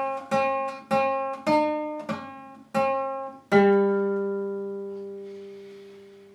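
Guitar strumming a short run of chords at an even pace, about six in all. The last chord, a little over halfway through, is held and left to ring out, fading slowly.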